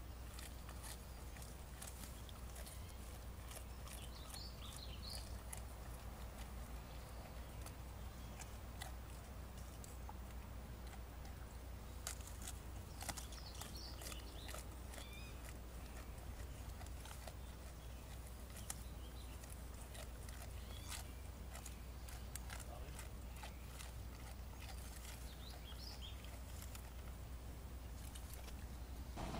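Faint outdoor ambience: a steady low rumble with many small crackles and snaps scattered throughout, and brief high chirps about four seconds in, around thirteen seconds, and near the end.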